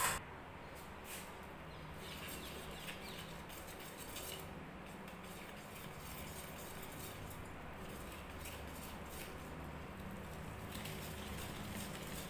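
A brief metal clank at the start, then a wire whisk stirring wheat flour into sugar syrup in a stainless steel bowl: faint soft scraping with light clicks of the whisk against the bowl, mixing the batter so no lumps form.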